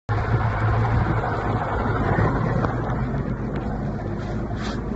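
Motorboat engine running steadily with a low hum, with wind buffeting the microphone.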